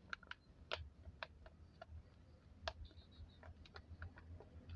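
Faint, irregular light clicks and taps, about a dozen scattered through, over a faint steady low hum.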